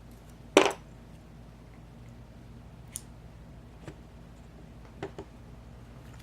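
Small hard clicks and taps of a padlock cylinder and lock tools being handled: one sharp click about half a second in, then a few fainter clicks.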